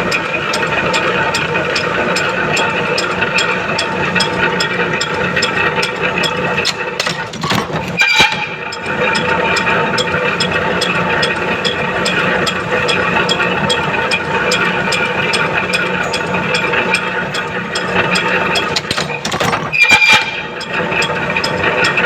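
Machine tool running steadily with a rapid, regular ticking, with two brief louder bursts, one about a third of the way in and one near the end, as the tool works the metal.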